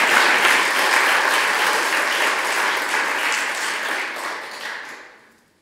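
Audience applauding, a dense patter of many hands clapping that thins out and fades away near the end.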